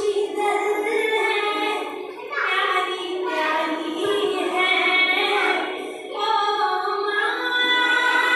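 A children's song playing, with a child's singing voice over a steady musical backing, accompanying an action dance.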